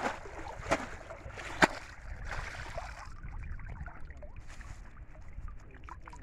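Bamboo shrimp trap lifted out of shallow water, with water splashing and dripping off it. Three sharp knocks of the trap come in the first two seconds, the last the loudest.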